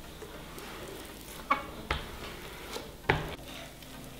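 Knife cutting a sheet of puff pastry in half on a cling-film-covered wooden board: three sharp taps, about one and a half, two and three seconds in, the last the loudest, over soft handling sounds.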